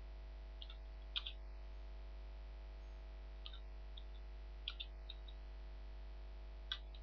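Computer keyboard keys clicking as text is typed: about nine sharp clicks in small irregular clusters, over a steady low mains hum.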